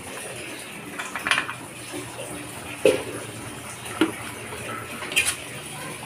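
An aluminium pan lid and a metal ladle clanking against an aluminium pan, about four sharp clanks, over the steady sound of coconut milk simmering.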